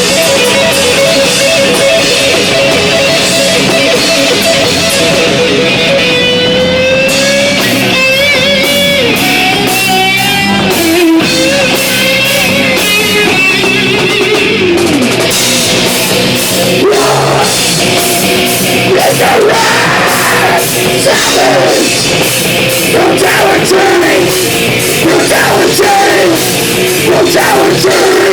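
Live heavy rock band playing loud, with distorted electric guitar and drum kit. Guitar lines bend and waver in the first half, and from about halfway through a shouted vocal joins over the drums.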